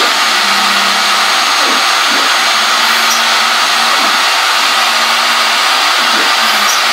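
Shapeoko CNC router running a dry-run toolpath: a loud, steady whir from the router's spindle motor, under lower stepper-motor tones that rise and fall every second or two as the gantry speeds up, slows and changes direction.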